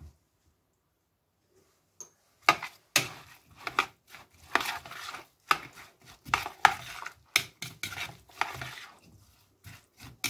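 A metal spoon stirring and tossing a shredded fennel and apple salad in a bowl, with repeated irregular clinks and scrapes of the spoon against the bowl. It starts about two and a half seconds in.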